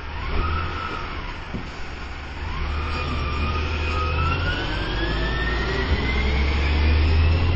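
Side-loading garbage truck pulling away: low diesel engine rumble growing louder, with a whine that rises steadily in pitch for several seconds as the truck gathers speed. A shorter whine sounds about half a second in.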